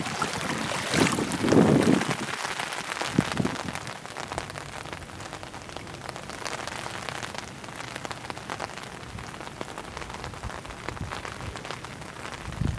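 Steady rain falling on a flooded street, a fine pattering of drops on standing water, with a couple of low rumbles in the first two seconds.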